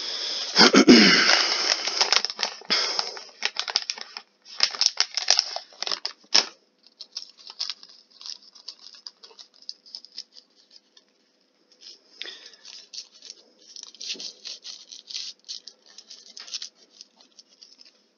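Reactoonz 2 video slot sound effects: a rapid run of crackling pops and clicks as symbols explode and cascade on the grid. It is loudest in the first two seconds, thins out to faint scattered ticks through the middle, and picks up again near the end.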